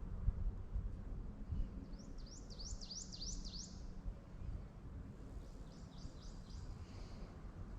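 A songbird singing two phrases of quick down-slurred notes, about four a second, the second phrase fainter, over a steady low rumble.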